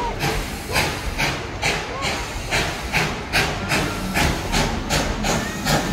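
Narrow-gauge steam locomotive Engine 190 working under steam, its exhaust chuffing in a steady beat of about two and a half beats a second over a low running rumble.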